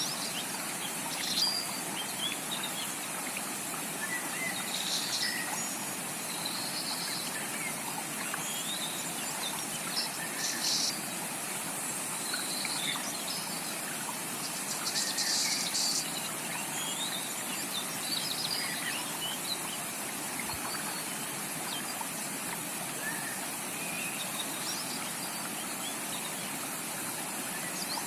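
Rainforest creek water running steadily, with tropical birds giving short chirps and calls now and then over it, and a longer burst of calls about halfway through.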